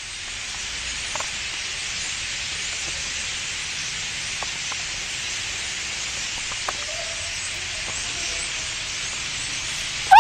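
Massed chatter of a huge flock of birds in a pine tree: countless calls blend into one steady, high hiss. A brief loud rising call cuts in at the very end.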